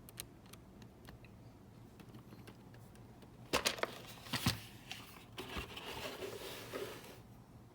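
Handling of mechanical keyboard switches and their packaging: scattered small clicks, a louder burst of sharp clicks about halfway through, then a stretch of crinkling.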